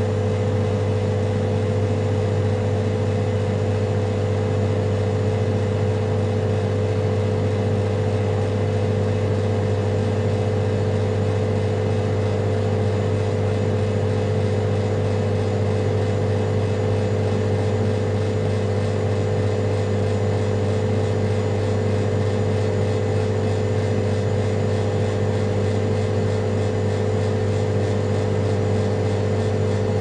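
Vending machine humming: a steady low hum with a fainter, higher steady tone above it, unchanging throughout.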